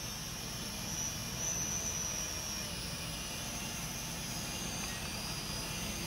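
Kolibri Hellfire toy quadcopter's small motors and propellers whirring in flight, a high whine that drifts up and down in pitch over a steady hiss.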